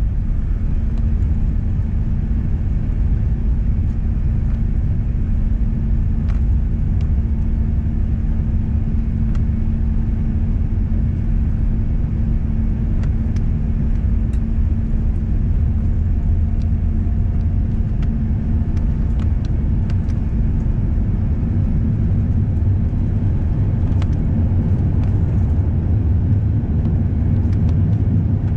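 Cabin noise of a Korean Air Airbus A380 during takeoff and climb: a steady, loud low rumble of jet engines and airflow heard from inside the economy cabin. A steady hum runs under it and fades out about twelve seconds in.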